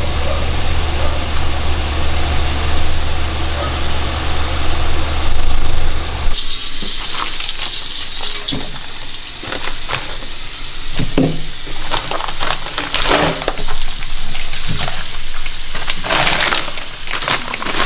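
A steady low hum for about six seconds, then an abrupt change to food sizzling and hissing in a hot pan, with metal utensils knocking and clattering against it.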